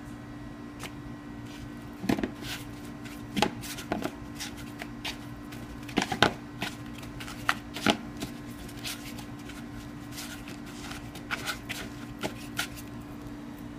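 Hands working strips of raw steak around a plastic bowl of dry seasoning: irregular taps, knocks and rustles of meat and fingers against the bowl, busiest in the middle, over a steady low hum.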